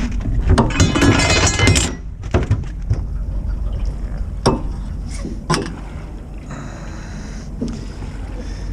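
Clattering and clinking of hard gear being handled on a small fishing boat, then three or four single sharp knocks, over a steady low rumble of wind on the microphone.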